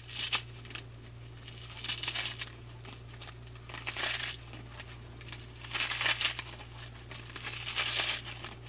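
Outer silk wall of a Cecropia moth cocoon rustling and tearing as fingers pull it apart, in about five short bursts roughly two seconds apart, over a steady low hum.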